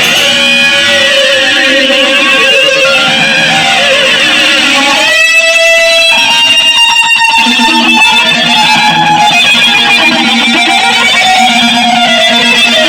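Loud, chaotic noise jam on what sounds like electric guitar, with many sliding, warbling pitches layered over each other. Between about five and seven seconds in the low end drops away and a buzzier, stacked tone takes over, then the dense wash returns.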